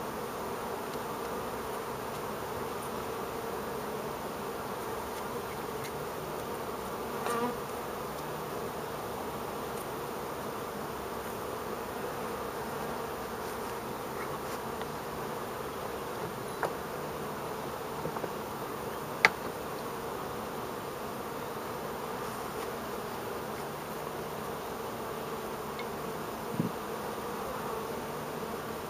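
Carniolan honeybees buzzing steadily around an open hive, a dense hum of many bees in flight. A few short clicks cut through it, the sharpest about two-thirds of the way through.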